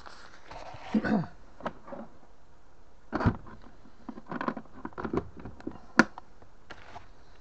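Hard plastic tool cases knocking and clicking against each other and the drawer as they are handled and shifted in a packed toolbox drawer: a scatter of sharp knocks, the loudest about six seconds in.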